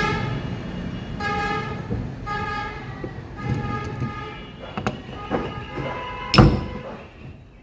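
A vehicle horn tooting four times in short flat blasts, followed by a few sharp clicks and one loud knock about six seconds in.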